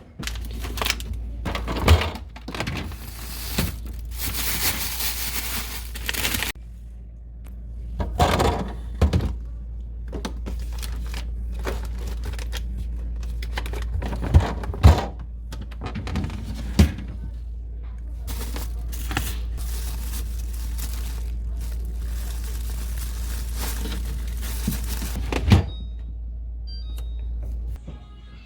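Household items being handled and set down: scattered knocks and thunks, with a few stretches of rustling, over a steady low hum.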